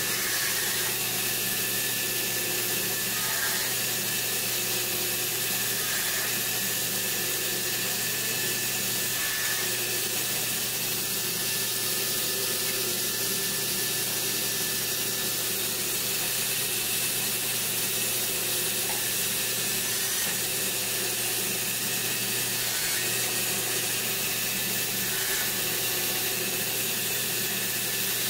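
Woodworking power saw running steadily at an even pitch while small strips of wood are cut.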